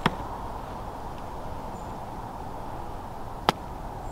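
A putter strikes a golf ball with a sharp click on a downhill putt, and a second sharp click comes about three and a half seconds later, over steady outdoor background noise.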